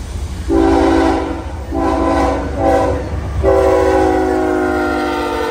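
CSX freight locomotive's Nathan K5HL five-chime air horn sounding the grade-crossing signal: long, long, short, long. The final long blast sags slightly in pitch as the locomotive passes, over the low rumble of the diesel engines and wheels.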